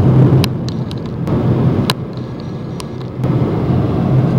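Road noise inside a moving car: a steady low rumble of engine and tyres, with a few sharp clicks. The rumble eases about half a second in and comes back up after about three seconds.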